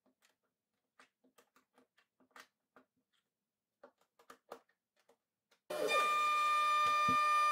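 Faint clicks and taps of wooden fixture parts and clamp hardware being handled as a walnut stile is set in a jig. About two-thirds in, a shop-built KRMx02 CNC router's spindle cuts in abruptly, running with a steady high-pitched whine. A couple of low thumps follow about a second later.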